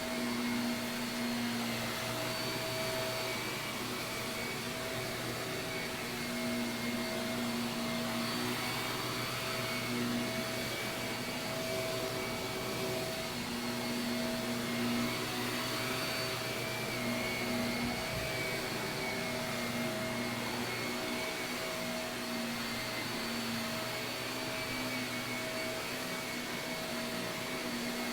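Shark vacuum cleaner running steadily on carpet: an even motor whine and airflow hiss with a few held tones that fade in and out slightly as it is pushed along.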